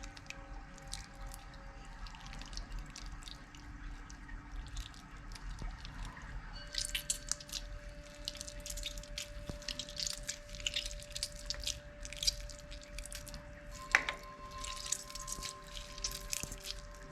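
Cra-Z-Art Nickelodeon slime being squished and worked by hand, making wet clicking and popping sounds that grow busier about six seconds in, with one louder click near the end. Soft background music with held notes plays underneath.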